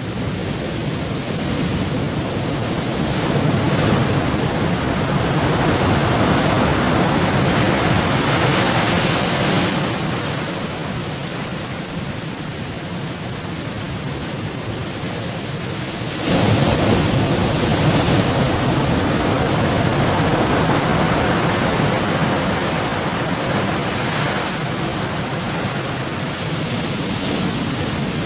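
Rough sea and strong wind around a fishing boat: a steady rush of noise that swells and eases in surges, jumping suddenly louder about two-thirds of the way through.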